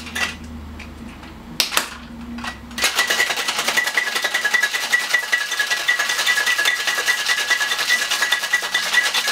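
Ice rattling inside a metal cocktail shaker as a drink is shaken hard: a loud, fast, steady rattle with a ringing metallic tone that starts about three seconds in. Before that come a few sharp metal knocks as the shaker tins are fitted together.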